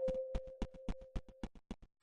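A rapid series of sharp, separate clicks, about seven a second, over a held hum that fades out near the end.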